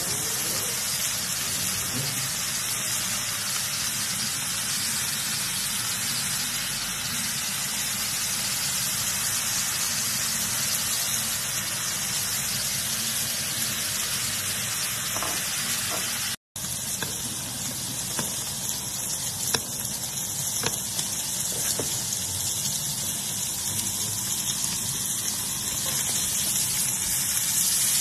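Thick beef steaks searing in melted butter in a cast-iron skillet: a steady sizzle, cut off for a moment about halfway through, with a few light clicks in the second half.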